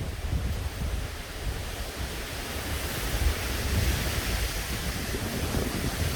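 Typhoon wind and rain: steady rushing hiss with low rumbling wind buffeting on the microphone, swelling in a stronger gust around the middle.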